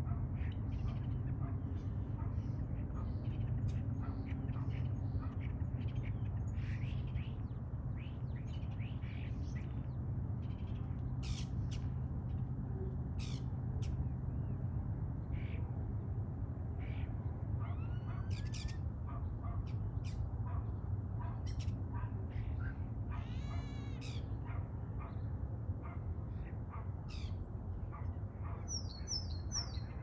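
Common starlings singing: a varied string of short whistles, clicks and chatter, with a buzzy rattle about three-quarters of the way through, over a steady low rumble.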